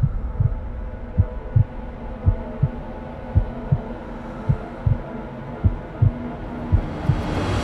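Film-trailer sound design: a low heartbeat-style pulse, two thumps close together about once a second, over a steady low drone.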